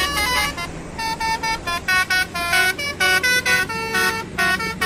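Telolet multi-tone bus horn playing a quick tune: a rapid string of short honked notes jumping between pitches.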